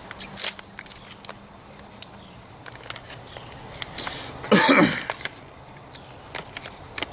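A man coughs once, loudly, about four and a half seconds in, with a few light clicks and rustles of handling before it.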